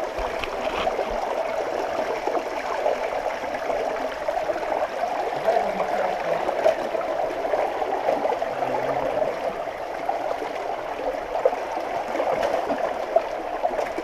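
Water rushing steadily over rock in a narrow stone gorge, an even noise with no break.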